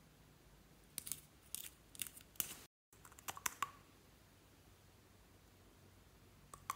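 A run of sharp, snipping clicks from small objects being handled, in two clusters split by a brief dropout of the sound just before halfway, the later clicks with a slight ring; quiet room tone after that.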